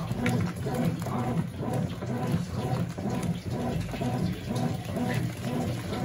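Consul CWS12 12 kg washing machine agitating a load of jeans in water during a pre-wash: motor hum and sloshing water that swell and ease in a regular rhythm, about twice a second.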